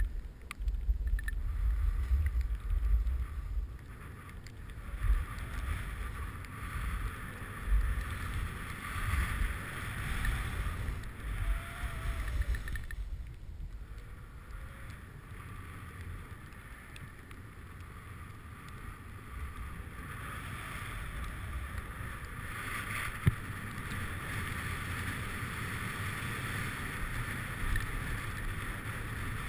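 Wind buffeting the microphone of a camera carried by a downhill skier, a gusty low rumble that is strongest in the first few seconds, over the steady hiss of skis sliding on packed snow. A single sharp knock sounds about two-thirds of the way through.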